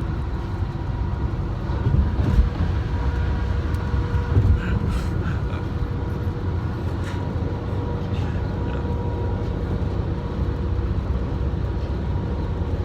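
Steady low road rumble inside a moving car's cabin, with a faint steady whine above it. The rumble swells in a couple of brief bumps about two and four and a half seconds in.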